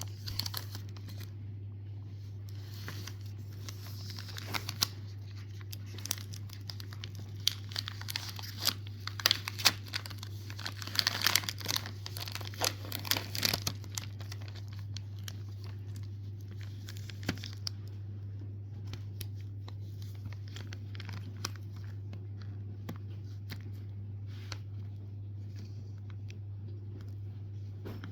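The wrapper of a Cadbury Dairy Milk Biscoff bar being torn open and crinkled by hand, in dense rustling bursts for the first half, then only occasional small crackles. A steady low hum runs underneath.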